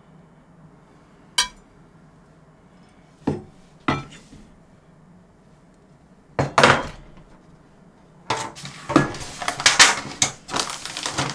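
A large kitchen knife knocking and scraping as a papaya is cut open: a few separate sharp taps, then a busier run of knife-and-utensil clatter near the end.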